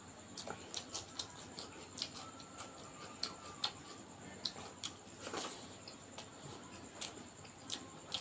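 Close-miked eating sounds: irregular wet clicks and smacks of chewing, several to the second.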